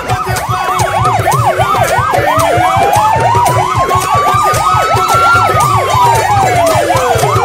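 Two convoy vehicle sirens sounding together. One is a fast yelp, rising and falling about three times a second. The other is a slow wail that climbs from about two seconds in and falls back near the end, over a low rhythmic pulsing.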